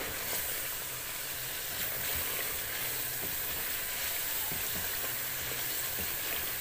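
Chicken and ground spices sizzling in ghee in a metal pot, a steady frying hiss, while a wooden spoon stirs through the masala with a few soft knocks against the pot.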